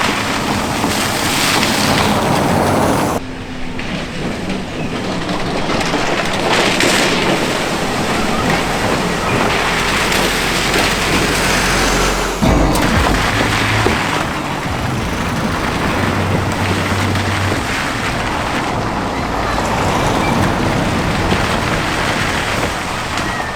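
Vehicles driving through a flooded river ford: water splashing and rushing in repeated surges, with engines running underneath. The sound changes abruptly about three seconds in and again about halfway through.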